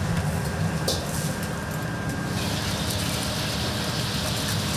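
Steady low roar of a kitchen gas burner, joined about halfway through by a hiss that holds to the end.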